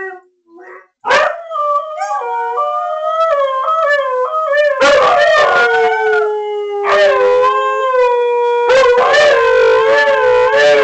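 Siberian husky howling: a run of long, wavering howls that begins about a second in and runs on with only short breaks.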